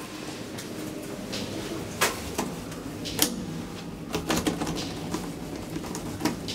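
Sharp mechanical clicks inside a traction elevator car as its push buttons are pressed, over a steady low hum.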